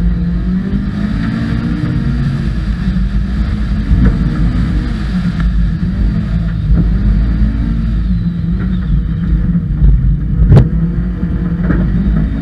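Rally car engine at speed on a dirt stage, its pitch rising and falling repeatedly through shifts and lifts, with a few sharp knocks from the car over the rough surface; the loudest knock comes about ten and a half seconds in.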